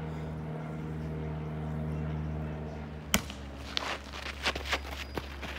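A steady low hum, then a single sharp knock about three seconds in, followed by a string of irregular footsteps on a gravel driveway.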